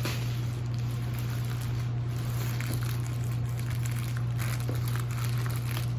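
Faint crackling and rustling of packaging being handled, over a steady low hum.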